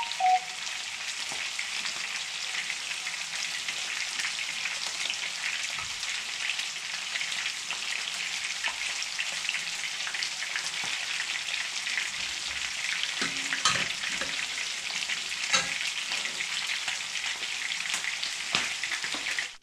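Whiting frying in a pan of hot oil: a steady sizzle with fine crackles, with a few light knocks in the pan near the end. The sizzle cuts off suddenly.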